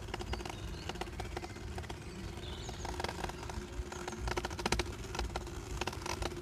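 Riding a bicycle on a paved path: a steady low rumble of tyres and wind on the microphone, broken by bursts of rattling clicks from the bike about three seconds in and again between four and five seconds. A couple of faint high bird chirps come through above it.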